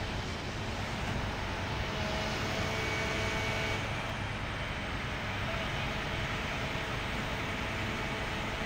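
Crane truck's engine running steadily, a continuous low rumble with no breaks.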